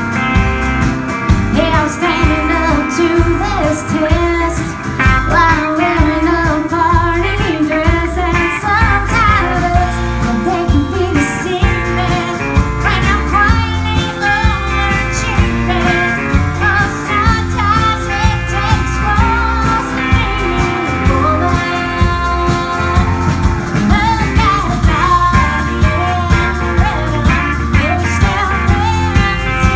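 Live country-rock band playing with a steady beat.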